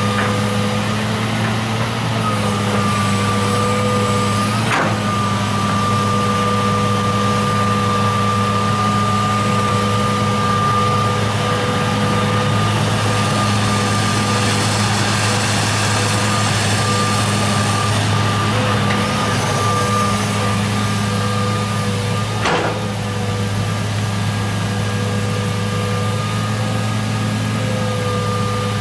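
John Deere 200 excavator's diesel engine running steadily while it digs and swings, with a steady whine over it. Two sharp knocks come about five seconds in and again about twenty-two seconds in.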